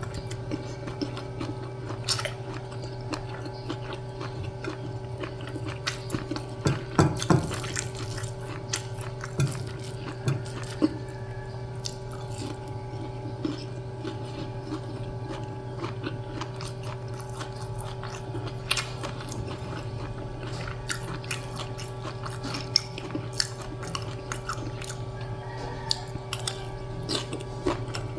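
A person eating: chewing and biting food, with many short sharp clicks and taps through the whole stretch and a louder cluster about seven seconds in, over a steady low hum.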